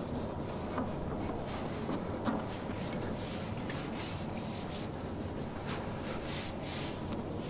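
A cloth rag rubbing over the painted sheet-metal hood of a tractor in repeated strokes, wiping off paste polish after buffing.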